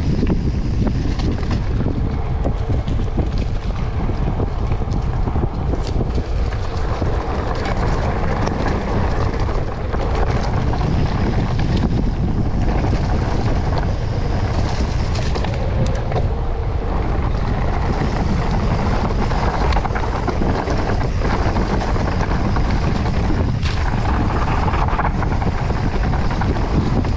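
Wind buffeting the microphone and mountain bike tyres rolling over a dirt trail, with brief knocks and rattles from the bike over bumps.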